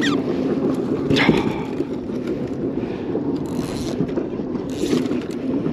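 Water sloshing against a plastic fishing kayak, with a knock about a second in and scraping as a landing net holding a caught fish is hauled aboard, and brief splashes later on.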